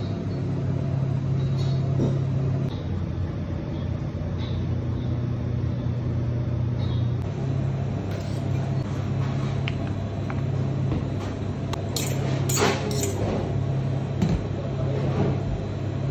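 Steady low machine hum of a commercial kitchen's running equipment, with a few sharp metallic clinks of utensils about three-quarters of the way through.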